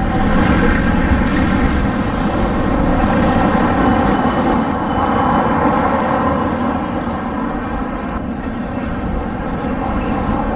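Tram running at a platform: a loud, steady rumble with a hum of several tones through it. A thin high whine sounds for a couple of seconds near the middle.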